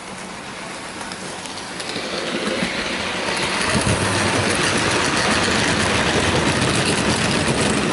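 Model railway train running past close by, its wheels rolling on the track. It grows louder over the first few seconds, then runs on steadily.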